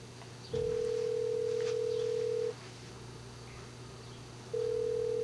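Telephone ringback tone heard in the handset: a steady tone held for about two seconds, then after a two-second gap sounding again near the end. It is the line ringing while the caller waits for an answer.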